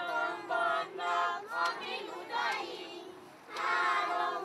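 A group of children singing a folk song together in high voices, phrase after phrase, with a short break about three seconds in before the singing resumes.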